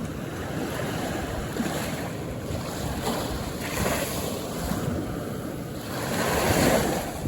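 Calm ocean surf: small waves breaking and washing up the beach in several slow swells, the loudest wash near the end.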